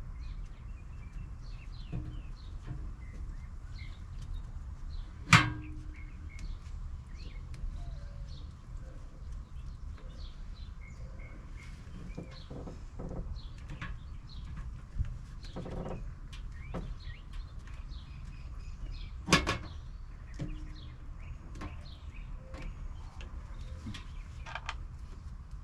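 Small birds chirping on and off over a low steady hum, with two sharp knocks, one about five seconds in and one near twenty seconds.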